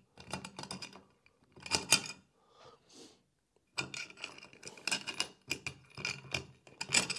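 Long bolts being pushed through the holes of a black metal CNC plate on a cutting mat, making small metallic clicks, taps and light rattles as they seat. A few clicks come first, then a pause, then a denser run of clicks through the second half.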